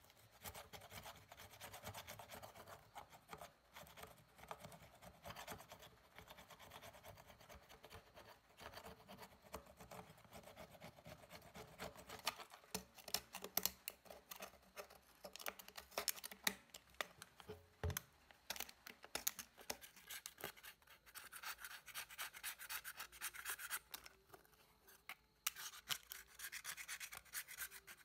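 A metal blade scraping crusted rust and grime off the housing of an old, rusty PA speaker driver unit: repeated rough scraping strokes with scattered sharp clicks.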